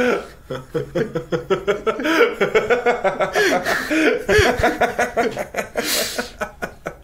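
Men laughing: a long run of quick ha-ha pulses that eases off into a breathy exhale near the end.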